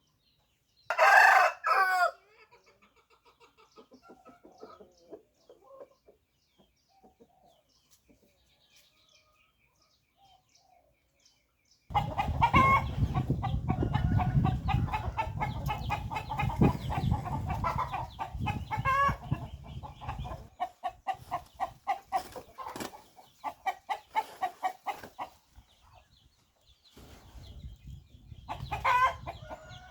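Chickens clucking, with a rooster crowing loudly about a second in. Faint scattered clucks follow. From about twelve seconds in there is dense, rapid clucking over a low rumble, and another loud call comes near the end.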